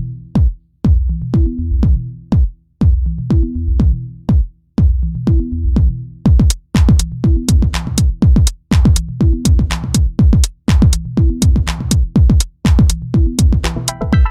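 Background electronic music with a steady drum-machine beat over a low bass line; a brighter percussion layer joins about halfway through.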